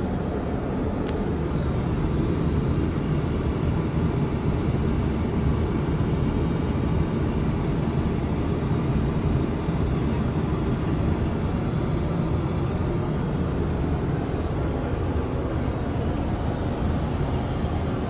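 Steady low rumble and rush of a Boeing 737 MAX 8 airliner's cabin noise, heard inside its lavatory. A faint click about a second in.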